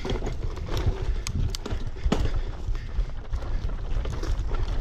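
Bicycle rolling down a bumpy dirt forest trail: a steady low rumble with irregular clicks and rattles as the bike jolts over the ground.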